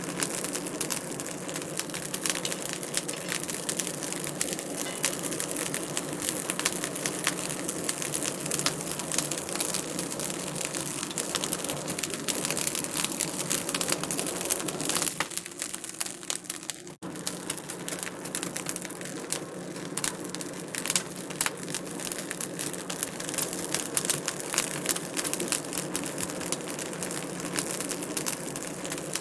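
Wood fire crackling in a fireplace: a dense, steady run of small pops and snaps. It thins briefly about fifteen seconds in and drops out for an instant just after.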